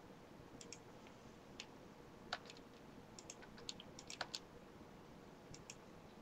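Faint typing on a computer keyboard: about a dozen irregular keystroke clicks, bunched most thickly around the middle.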